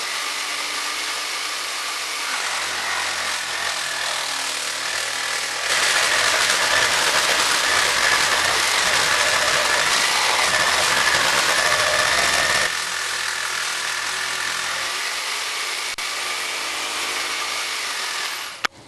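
Jigsaw mounted upside down in a homemade table attachment, running steadily. From about six to about thirteen seconds in it gets louder as the blade rips through a length of wood, then it runs free again and is switched off near the end.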